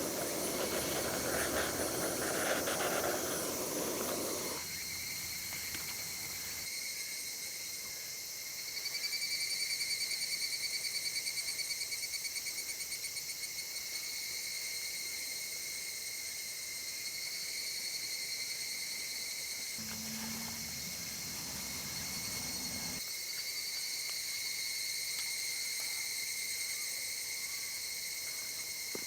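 Insects singing steadily, a high buzzing drone that pulses for a few seconds near the middle. A rushing hiss in the first few seconds and a brief low hum about twenty seconds in.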